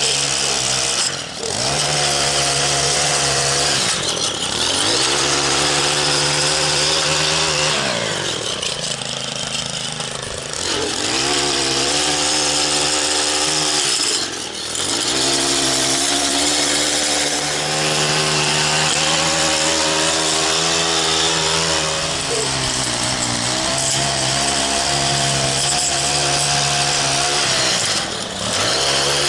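Two-stroke petrol stick edger running near full throttle as its edger blade cuts along a sidewalk edge. Several times the engine drops back briefly and revs up again, with a longer lull around the middle.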